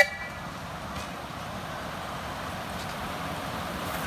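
Miniature 7¼-inch gauge steam locomotive approaching with its passenger train. A blast on its whistle cuts off at the very start, then the engine's running sound is faint and steady and slowly grows louder as it draws near.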